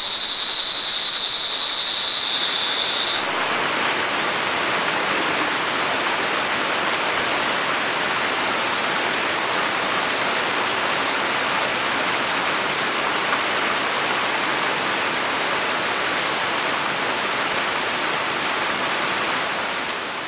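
Crickets trill in a steady, high-pitched chorus over the even hiss of falling rain. The crickets stop abruptly about three seconds in, leaving only the rain, which fades out at the very end.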